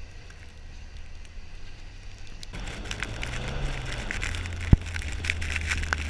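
A Mitsubishi Lancer Evolution X driving and sliding through snow: a steady low engine hum, joined about halfway by a louder crackling of tyres and snow with the engine revving up and back down. A single sharp knock comes just before the end.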